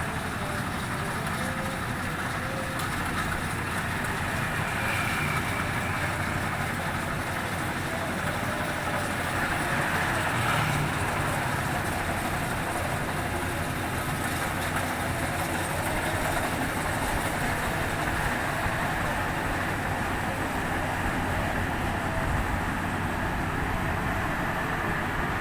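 Rice harvesting machine running steadily, a continuous engine and machinery noise.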